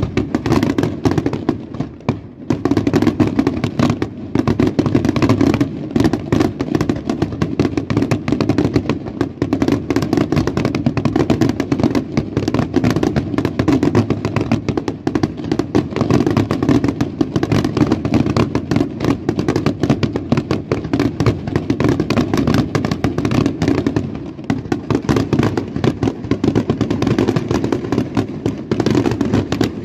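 Aerial fireworks display by Colangelo Fireworks: a dense, unbroken run of shell bursts and crackling. It dips briefly about two seconds in, then continues as a loud, continuous barrage.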